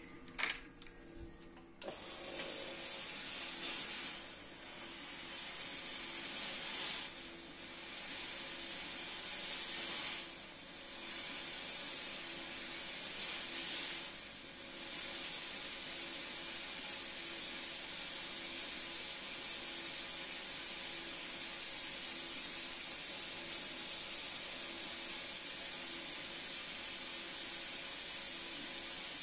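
A click, then a fog machine starts jetting fog with a steady hiss. The hiss swells in surges about every three seconds at first, then settles to an even, continuous hiss.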